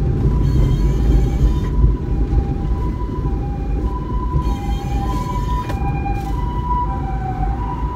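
Japanese ambulance siren sounding its two-tone hi-lo "pee-poh" pattern, a higher and a lower tone alternating about once a second, starting faint and growing stronger. It is heard from inside a vehicle's cab over the steady low rumble of the engine and road.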